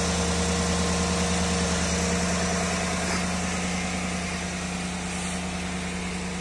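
GMC Yukon's V8 engine idling steadily, an even low hum with no revving.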